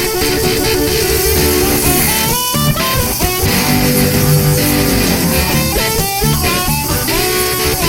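Background music led by guitar, with drums keeping a steady beat.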